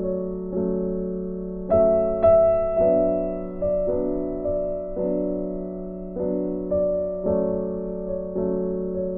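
Background piano music, with notes and chords struck about once or twice a second, each fading away before the next.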